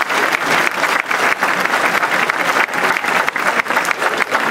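Audience applauding steadily: many hands clapping together, a dense even patter of claps welcoming a dance couple onto the floor.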